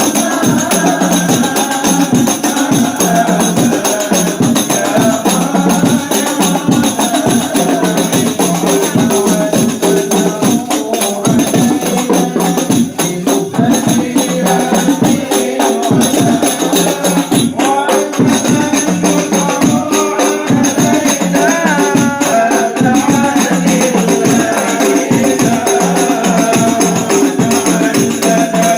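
Rebana frame drums beating a steady rhythm under voices chanting a devotional sholawat together.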